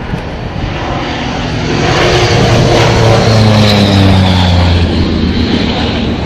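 Antonov An-2 biplane flying past, its nine-cylinder radial engine and propeller growing louder, then dropping in pitch about three and a half seconds in as it passes.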